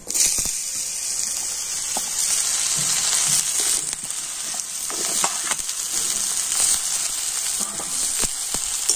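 Sliced ridge gourd sizzling in hot mustard oil in a kadai, the sizzle starting suddenly as the pieces go in and staying steady. A metal spatula scrapes and clicks against the pan as the pieces are stirred.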